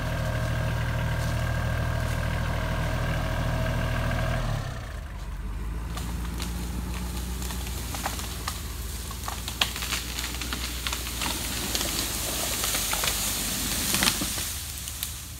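Tractor engine running steadily, then dropping to a lower, rougher note about four and a half seconds in. Scattered sharp clicks and snaps follow over the engine in the later part.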